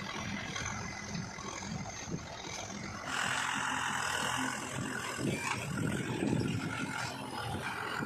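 Diesel engines of a backhoe loader and a farm tractor running steadily at low revs. About three seconds in the sound gets louder and brighter.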